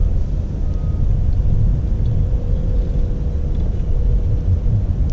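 Wind buffeting a GoPro's microphone outdoors: a loud, steady low rumble, with a faint steady hum above it from about halfway through.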